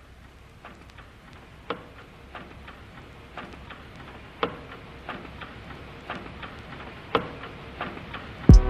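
Trekking pole tips tapping on rock and footsteps on a rocky trail: irregular sharp ticks about two a second, a few louder than the rest. Music comes in loudly near the end.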